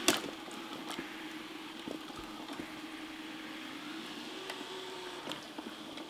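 DeenKee D40 robot vacuum-mop running while mopping a hardwood floor: a steady motor hum, with a sharp click right at the start and a few faint ticks.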